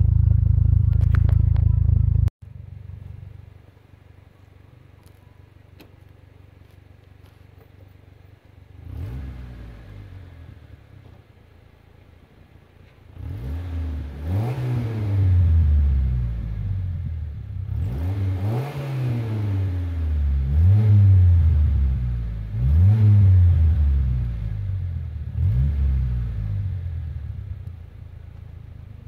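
A 1997 Mitsubishi Mirage's engine idles through a new Cherry Bomb Turbo muffler, loud and steady close to the tailpipe, then drops sharply to a quieter idle about two seconds in. It is revved briefly once, then about six times in a row, each rev rising and falling in pitch, before easing back toward idle near the end.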